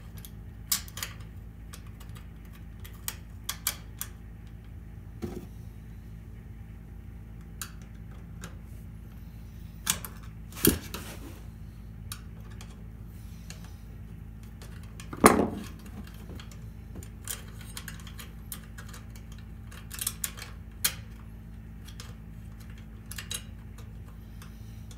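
Small metal clicks and taps of a steel range-cord clamp being handled against the range's sheet-metal back panel while its screws are started with a screwdriver, with a louder knock a little past the middle, over a steady low hum.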